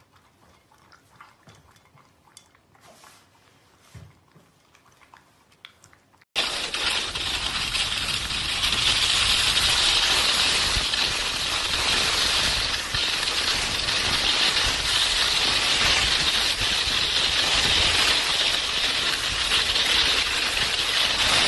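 A dog eating dry kibble from a plastic bowl: faint crunching and small clicks of kibble against the bowl. About six seconds in, it cuts to a loud, steady rushing hiss of sliding fast down a hard, icy snow slope.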